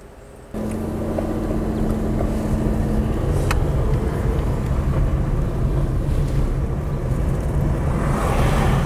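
Car engine running with steady road and tyre noise as the car drives, starting abruptly about half a second in.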